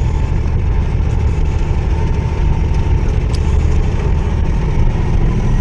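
Truck's diesel engine running with a steady low rumble, heard from inside the cab as the loaded truck is taken slowly down a short hill descent.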